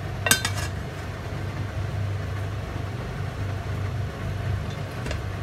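Steady low hum of a running kitchen appliance while oil heats in a pan, with one sharp click about a third of a second in and a fainter one near the end.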